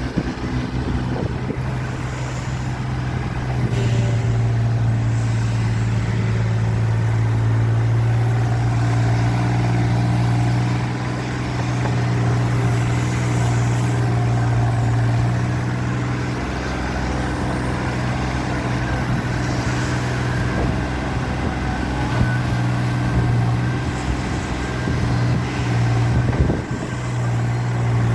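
Mini excavator's diesel engine running steadily with a deep, even hum, a little louder from about four seconds in, with fainter shifting tones above it.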